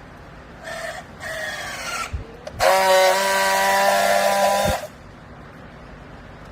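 Rags baler's hydraulics whining under load: two short whines rising slightly in pitch, then a loud steady whine for about two seconds that cuts off suddenly.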